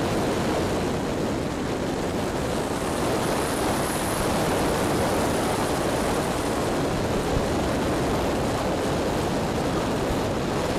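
Steady rush of air and propeller noise from an electric RC model airplane in flight, with no clear motor whine.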